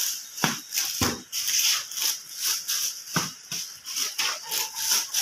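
Loaves of bread being stacked and arranged in a packing basket with dividers: rustling and crinkling with a few light knocks, about half a second in, at one second and a little after three seconds.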